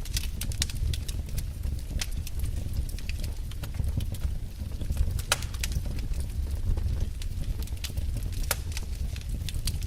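Wood fire burning in a fireplace: irregular crackles and sharp pops over a low steady rumble of the flames.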